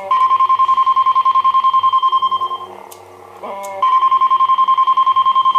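A lightsaber sound board plays a steady high tone through its small speaker, pulsing about ten times a second, while the blade cycles colours in colour-change mode. The tone runs for about two and a half seconds, breaks off, and starts again after a short stepped chirp just before the four-second mark.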